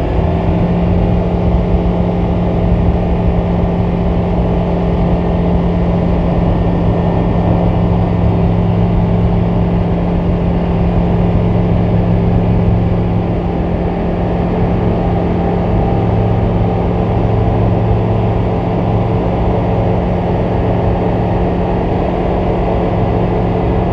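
Rotax 912 Xtra flat-four aircraft engine and propeller running at full takeoff power: a loud, steady engine note held through the takeoff roll and lift-off of a light bushplane.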